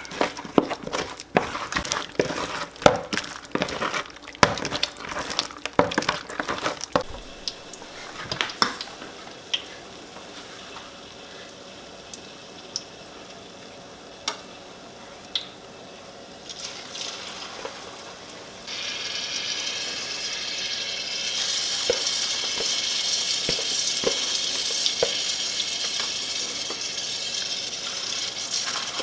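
Clicks and knocks of shrimp being worked by hand in a bowl of egg and cornstarch batter. About two-thirds of the way in, a steady sizzle starts suddenly: battered shrimp frying in hot oil.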